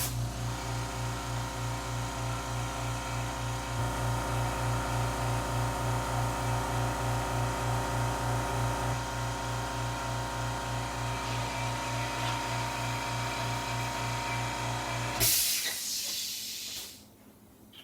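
Small airbrush air compressor running with a steady electric-motor hum and a rhythmic pulse of about three beats a second. About fifteen seconds in it stops, followed by a short, loud hiss of air.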